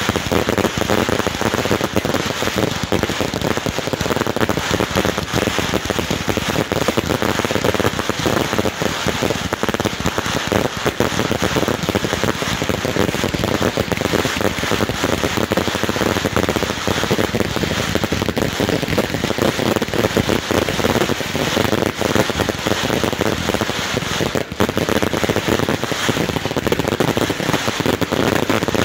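Fireworks crackling densely and without a break, countless small pops blending into a steady patter like heavy rain.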